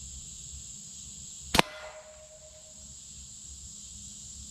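A hard plastic slingshot ball being shot: one sharp crack about a second and a half in, followed by a faint ringing tone that fades over about a second.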